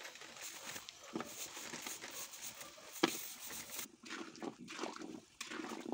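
Jaggery and water boiling into syrup in a large iron kadhai, a faint bubbling with a couple of sharp knocks about one and three seconds in. From about four seconds in, a spatula stirs and scrapes the pan.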